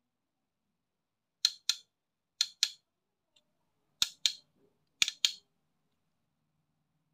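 Four pairs of sharp, crisp clicks, each pair two quick snaps about a quarter second apart, the pairs coming roughly a second apart.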